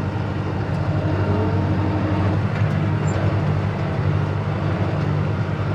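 Tractor engine running steadily under light load, towing a spray tank across a paddock, an even low hum that holds its pitch.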